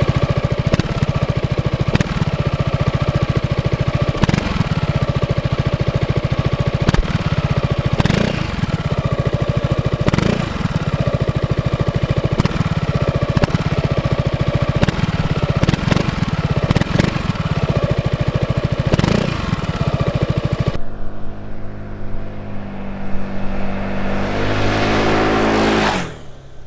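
Yamaha Tricity 300 scooter's single-cylinder engine revved over and over, the pitch rising and falling about every two seconds. From about three quarters through it turns duller and lower, then dies away at the very end.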